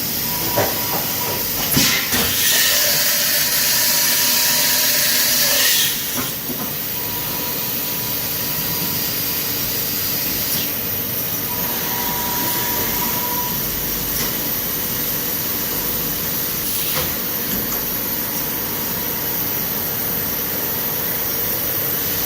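MCM horizontal machining centre running with a steady mechanical noise and scattered clicks. About two seconds in, a loud hiss starts and cuts off sharply some four seconds later.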